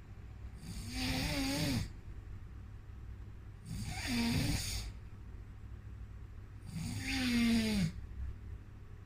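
Snoring: three snores about three seconds apart, each a buzzing rasp about a second long, with quieter breathing between them.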